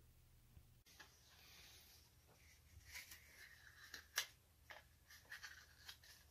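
Faint rustling and crackling of a small photo print being curled into a tube between the fingers, starting about a second in, with several sharp ticks; the loudest comes about four seconds in.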